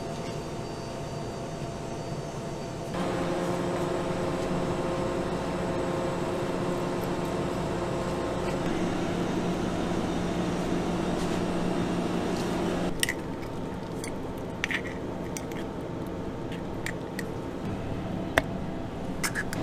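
Steady machine hum of a commercial kitchen, louder and more tonal for several seconds in the middle. Over the last several seconds come a series of sharp taps and clicks as eggshells are cracked and pulled apart by hand.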